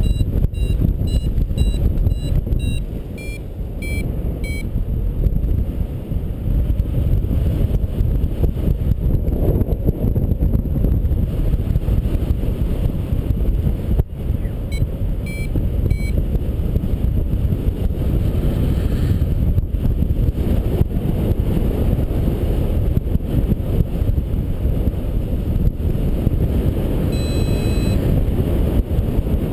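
Airflow buffeting the microphone of a camera flying under a paraglider, a steady low rush. Over it a paragliding variometer beeps: rapid short beeps, about two a second, in the first few seconds and again briefly about fifteen seconds in, with a held tone near the end. These are the sign of the glider climbing in rising air.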